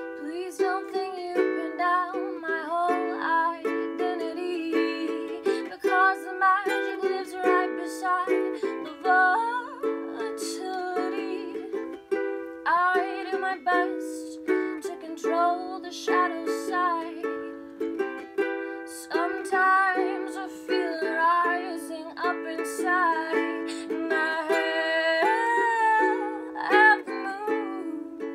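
A ukulele strummed with a woman singing over it; the voice breaks off briefly a few times while the strumming carries on.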